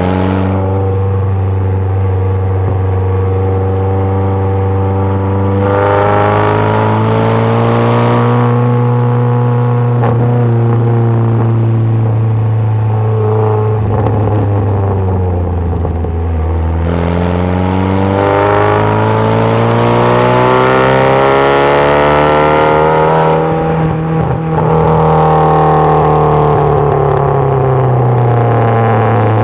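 MG Midget's Ford 2.0 Zetec four-cylinder engine running hard under way, heard from the open cockpit. The revs climb and fall several times as the car accelerates and eases off round the circuit.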